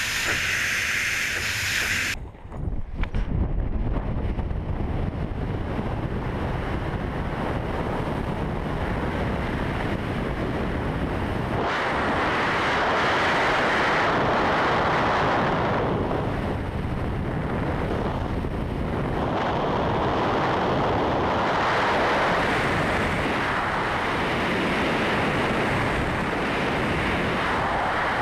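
Loud rush of wind over a helmet camera's microphone in wingsuit flight. The noise changes abruptly about two seconds in and swells louder twice.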